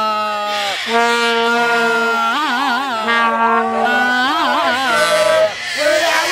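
Vuvuzela horns blown in long held notes. One keeps a steady drone that breaks off briefly about a second in and again near the end; another bends up and down in pitch twice in the middle.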